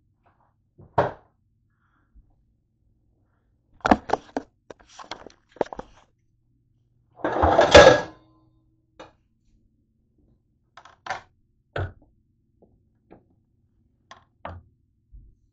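Scattered knocks and clicks of things being handled on a kitchen counter, with one louder clatter lasting about a second, around halfway through.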